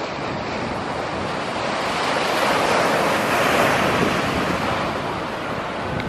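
Ocean waves breaking, with surf washing in: a steady rush that swells to a peak a few seconds in, then eases off.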